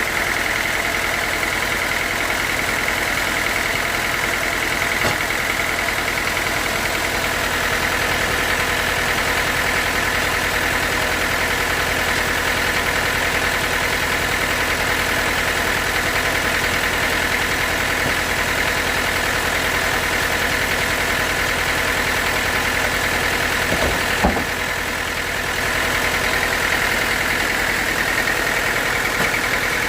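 Sawmill running steadily as it saws a teak log, a continuous machine drone with a high whine. There is a single sharp knock about 24 seconds in, and the level dips briefly after it.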